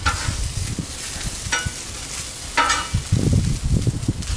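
Asparagus, green beans and scallions sizzling on a Blackstone flat-top griddle. A metal spatula scrapes across the steel top three times as the vegetables are turned.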